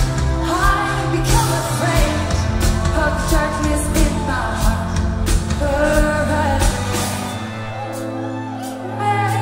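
Live pop-rock band playing, with a female lead vocal over drums and bass. About seven seconds in, the drums and bass drop out, leaving the voice over held chords, and the band comes back in at the very end.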